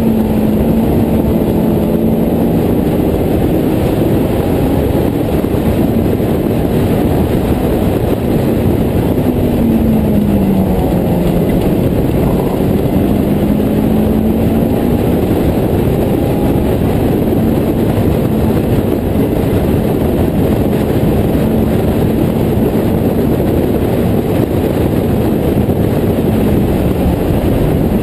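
Honda S2000 four-cylinder engine in an open-cockpit Westfield clubman car running hard on track, heard onboard over heavy wind noise. The engine pitch drops about ten seconds in, then climbs again.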